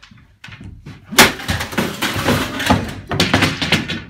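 A loud crash about a second in, followed by a few seconds of banging and clattering as wooden props and equipment are knocked over.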